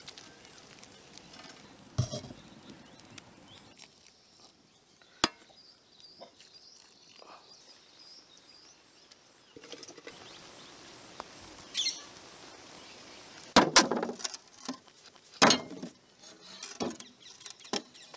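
Intermittent knocks and clatter of hands and utensils working a large aluminium cooking pot as biryani is layered and closed up. There is one sharp click about five seconds in, and the loudest group of knocks comes about two thirds through.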